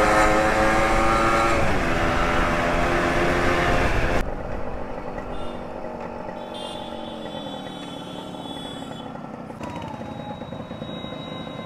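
Motorcycle engine rising steadily in pitch as the bike accelerates, with wind rushing over the microphone. About four seconds in, the sound drops suddenly to a quieter engine running lower and easing off in slow traffic.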